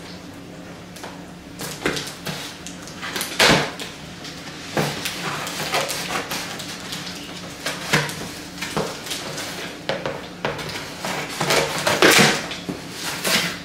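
Cardboard box being opened: scissors cutting through packing tape and cardboard, with the flaps scraping and rustling under the hands. A run of irregular scratchy strokes, the loudest about three and a half seconds in and again near the end.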